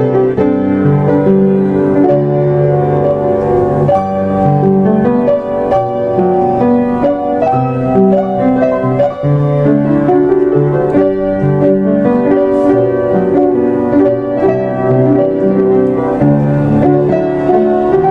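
Background piano music, steady and unbroken, with many sustained notes.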